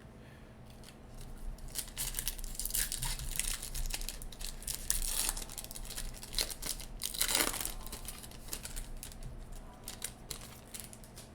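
A Bowman baseball card pack's wrapper being torn open and crinkled by hand: a run of quick rustling rips and crackles, with two louder tears about five and seven and a half seconds in.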